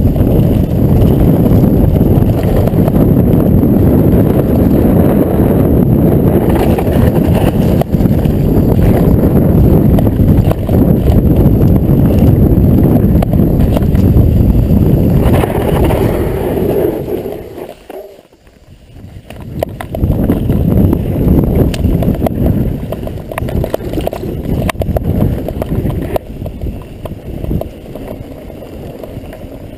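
Mountain bike on the move over rough trail: loud wind buffeting on the camera microphone mixed with the rumble and clatter of the bike, dropping away sharply for about a second two-thirds of the way through, then coming back a little quieter.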